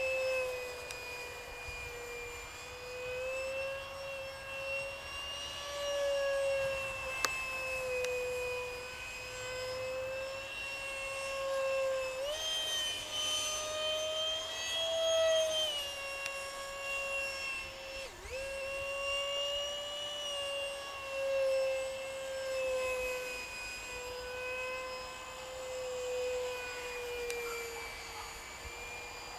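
64 mm electric ducted fan of a FreeWing F-35 Lightning II RC model jet in flight: a steady high whine whose pitch rises and falls as the throttle and the plane's passes change. It swells loudest around the middle and dips sharply for a moment about two-thirds of the way through.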